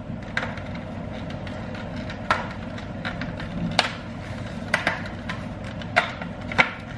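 Plastic clicks and knocks from handling a Bell Super DH helmet while working loose the clip that holds the chin bar at the back, which is temperamental. About half a dozen sharp clicks, irregularly spaced, over steady room noise.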